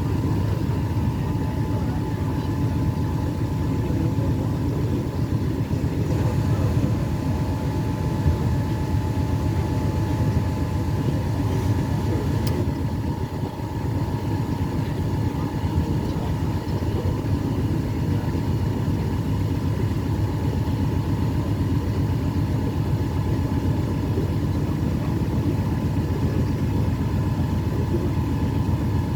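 Tour boat's engine running steadily at cruising speed, a constant low drone with a faint steady whine.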